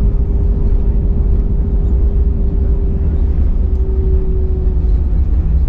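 Airbus A319 cabin noise while taxiing after landing: a steady low rumble from the engines at idle and the rolling gear, with a steady hum on top that shifts slightly about two-thirds of the way through.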